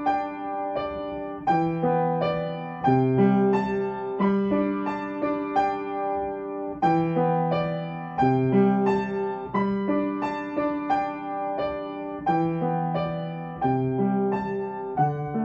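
Piano played with both hands: a slow, gentle piece, with low notes under a higher melody and a new chord struck about every second and a half.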